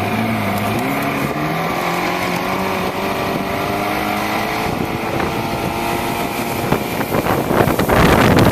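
A motorboat's engine running, its pitch rising about a second in and then holding steady. Near the end it is joined by a rush of wind on the microphone.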